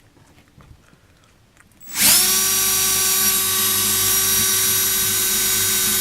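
Electric drill starting about two seconds in, spinning up quickly and then running at a steady speed, driving a titanium-coated high-speed steel bit into a wooden 2x4.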